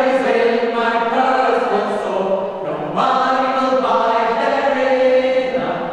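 Mixed choir of men and women singing a cappella in harmony, one phrase closing and a new one starting about three seconds in.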